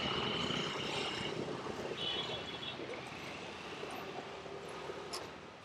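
Engine noise of a passing vehicle, an even noise with a faint steady hum that fades gradually. A short high chirping comes in about two seconds in.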